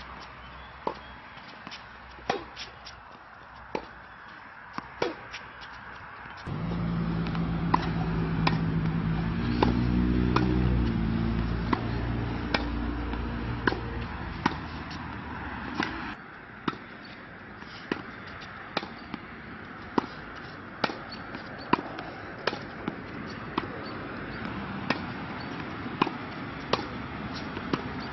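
Tennis balls struck with rackets at the net in a quick volley exchange: sharp pops every half second to a second, with ball bounces among them. From about six seconds in to about sixteen, a loud low engine-like drone with stepping pitch runs underneath and stops abruptly.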